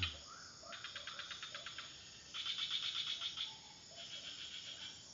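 Crickets chirping in three rapid, buzzy, high-pitched trills of about a second each, with short pauses between.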